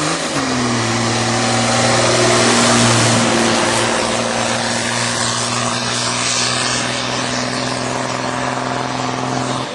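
Farm tractor's diesel engine running hard at steady high revs, a steady droning tone. The pitch dips briefly at the start, the engine is loudest about two to three seconds in as it passes close, and the sound cuts off suddenly near the end.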